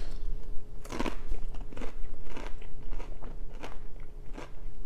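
Close-up crunching of a corn tortilla chip loaded with ceviche being chewed, about two to three crisp crunches a second.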